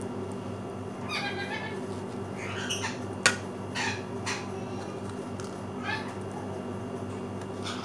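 A cat meowing about six times in short, high, arching calls. A sharp click comes about three seconds in, over a steady low hum.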